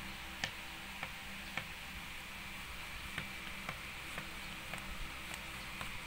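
Light, sharp clicks about twice a second over a steady hiss.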